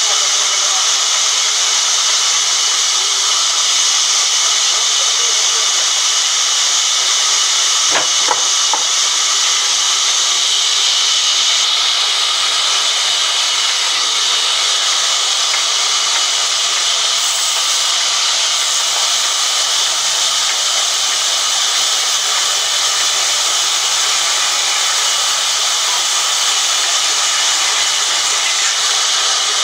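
Large sawmill band saw running and cutting through a thick timber baulk: a steady, loud, high hiss, with one sharp click about eight seconds in.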